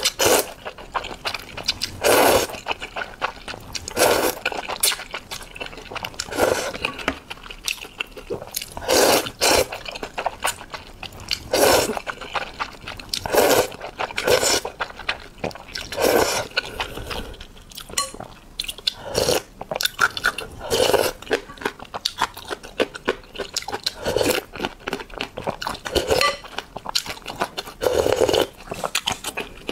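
Close-miked eating of noodles in spicy broth: slurping and wet chewing in repeated short bursts every second or two. Near the end, broth is sipped from a spoon.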